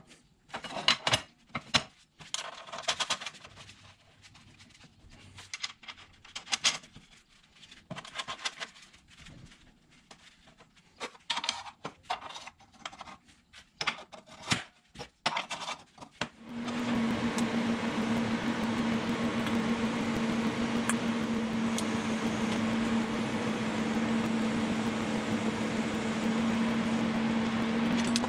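Irregular clicks and knocks of metal parts and tools being handled on a workbench. About 16 seconds in, a power tool starts and runs steadily with a hum and hiss.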